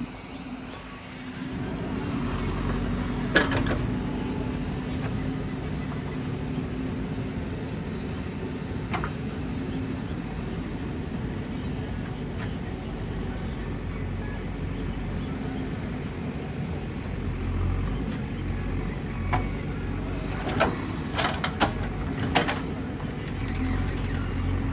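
JCB 3DX backhoe loader's diesel engine running steadily at working revs, picking up after a quieter first second and a half. Sharp knocks are heard once about three seconds in and several times in quick succession near the end.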